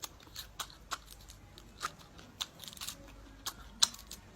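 Close-up crunching of a centipede being bitten and chewed: a string of sharp, irregular crisp cracks.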